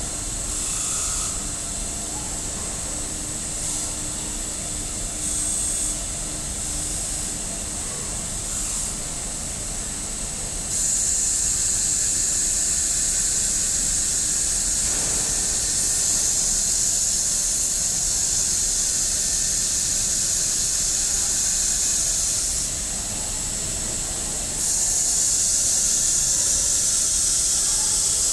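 Robotic abrasive grinder working a steel knife blade's edge: a steady high hiss of abrasive on metal. It is lighter and uneven at first, grows louder about eleven seconds in, dips briefly and rises again near the end.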